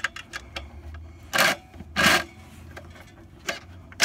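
Socket ratchet clicking in short bursts, three in all, the last at the very end, as the clutch pressure-plate nuts are tightened down a little at a time.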